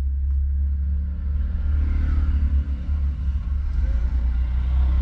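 A small car being driven, heard from inside the cabin: a steady low rumble of engine and road noise, getting a little louder about two seconds in.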